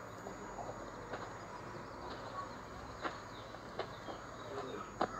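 Quiet outdoor street ambience with faint bird calls and a few soft, separate knocks.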